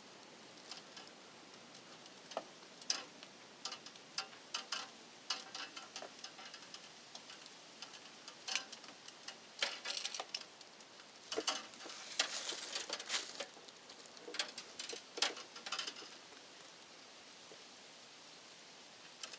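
Irregular small clicks, taps and scrapes of hand-tool work on electrical wiring, such as screwdriving terminal screws and handling wire. They grow busier midway, with a denser run of scraping about twelve to thirteen seconds in, then die away.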